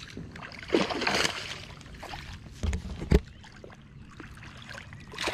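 Water splashing and sloshing as a hooked bass is fought and brought in at the bank, with a noisy burst about a second in and two dull thumps around three seconds in.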